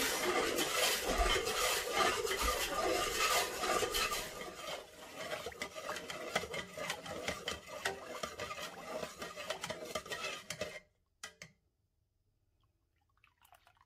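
Metal spoon stirring sugar into sorrel drink in a metal pot, scraping and clinking against the pot. The stirring is strongest for the first few seconds, eases, then stops suddenly near the end.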